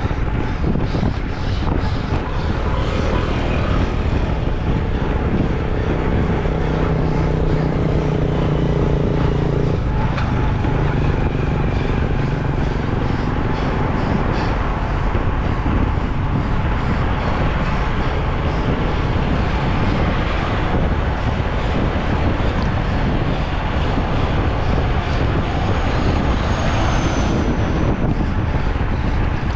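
Steady rush of wind and vehicle noise on a moving microphone, with an engine hum standing out for several seconds early in the stretch.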